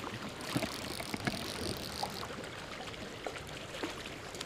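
Steady rush of a flowing creek, with a few faint clicks scattered through it.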